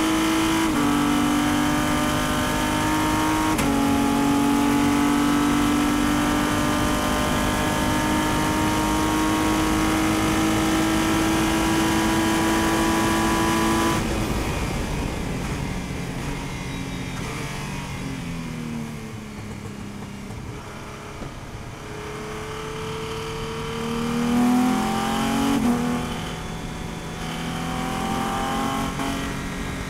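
In-car sound of a race prototype's engine at full throttle down a straight, with two upshifts in the first four seconds. About 14 s in, the driver lifts off sharply and the engine note falls through a run of downshifts under braking. From about 22 s it climbs again as the car accelerates out of the corner, with another upshift near 26 s.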